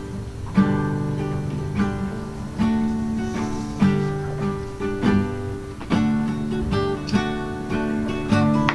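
Background music: an acoustic guitar strummed and plucked in a steady rhythm.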